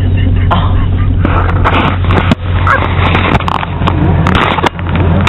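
Road and engine noise inside a moving car's cabin: a loud, steady low rumble with stretches of hiss on top.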